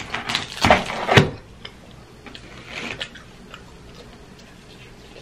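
A slice of pepperoni pizza being pulled out of a cardboard pizza box: a handful of sharp clicks and taps in the first second or so, then a few faint ticks.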